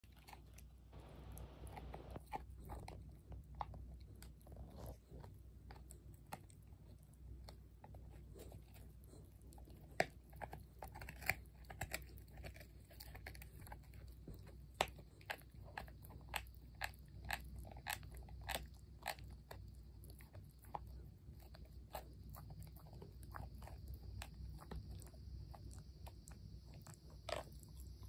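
Pit bull terrier puppy gnawing on a chew treat: an irregular run of crunching bites and clicks, several of them louder through the middle.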